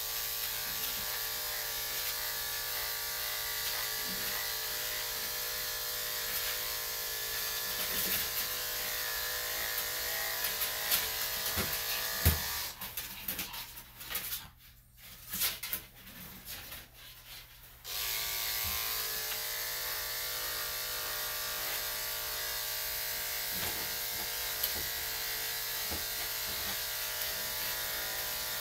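Electric dog grooming clippers with a #5 blade running with a steady hum. They are switched off about twelve seconds in, with a few small knocks during the pause, and switched back on some five seconds later.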